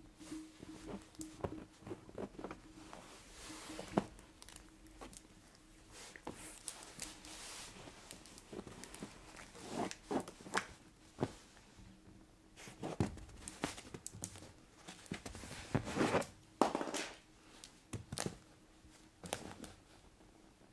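Long fingernails scratching and tapping on fabric sofa upholstery in short, irregular strokes and clicks, with a couple of longer scrapes in the second half.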